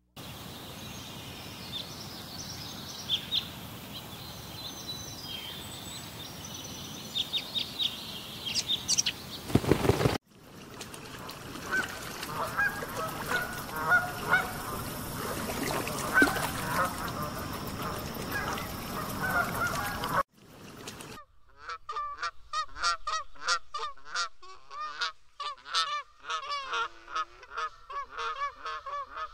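Swans calling. Black swans give scattered honking calls over a steady hiss, and after a cut a black-necked swan calls in a rapid run of short honking notes, several a second. Before the swans there are faint high bird chirps over the hiss and a low thump near ten seconds.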